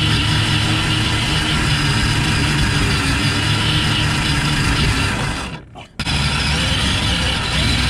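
Gen8 RC crawler's electric motor and gear drive whining steadily as it drives, picked up close by the on-board camera. The sound cuts out for about half a second near the six-second mark, then resumes.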